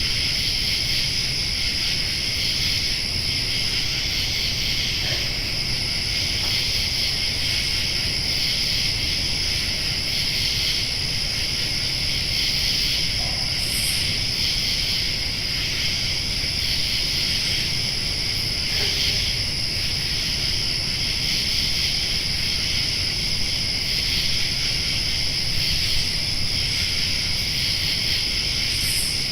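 Summer night ambience: a steady chorus of crickets and other insects trilling without a break, over a low, even rumble.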